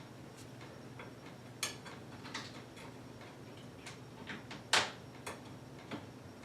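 Irregular light clicks and taps of bolts and nuts being fitted by hand into a plastic dog kennel's door, with a sharper knock a little under five seconds in.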